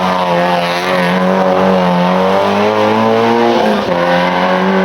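Rally car engine running hard at high revs, pitch held nearly steady, with a brief drop about three and a half seconds in before it picks up again.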